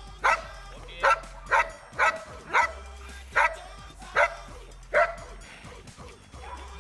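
Belgian Malinois barking repeatedly, about eight sharp barks at a steady pace that stop about five seconds in. These are guard barks at a decoy approaching the bag the dog has been left to guard.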